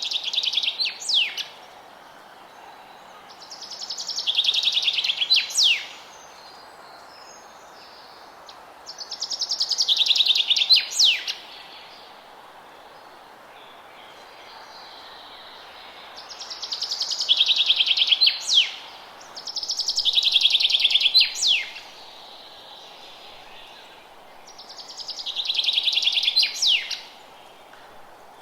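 A songbird repeating the same song six times, every four to six seconds: a fast high trill of nearly two seconds that ends in two sharp falling notes. A steady faint hiss runs underneath.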